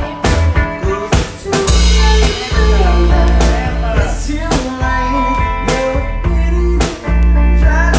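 Live one-man-band music: a hollow-body electric guitar played with a foot-played bass drum and snare keeping a steady beat, and a man singing over it.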